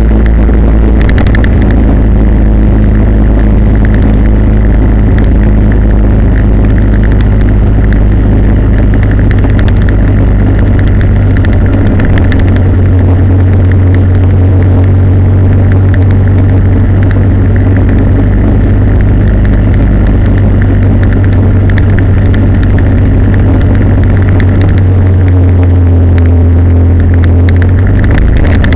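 A vehicle's engine running steadily on the road, with a loud low hum over road noise.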